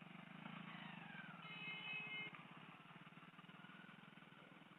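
Faint motorcycle engines labouring in the mud with a steady throb, their pitch falling over the first two seconds. A vehicle horn sounds once, for under a second, about a second and a half in.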